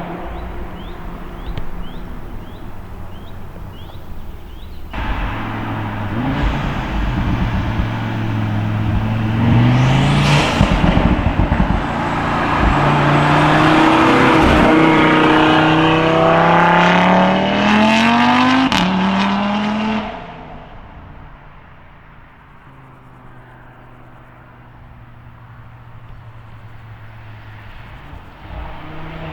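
Audi RS3 8V's turbocharged 2.5-litre five-cylinder, remapped and fitted with an aftermarket downpipe, revving hard in several rising pulls with crackling exhaust pops between them. About twenty seconds in the sound drops away sharply to a low, steady engine note.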